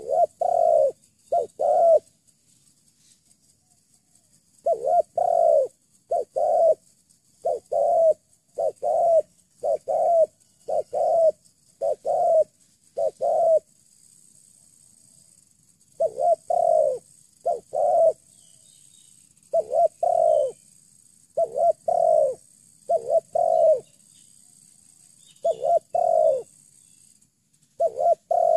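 Spotted dove (terkukur) cooing: repeated phrases of two or three low coo notes, each phrase a second or two long, with short pauses between them.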